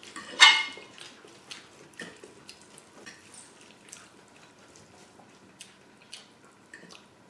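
Close-up wet chewing and mouth sounds of a person eating creamy pasta alfredo: a louder wet slurp about half a second in, then scattered soft wet clicks and smacks.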